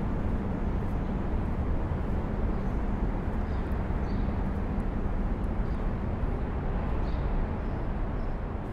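Steady low rumble of city traffic, with a few faint, short high chirps.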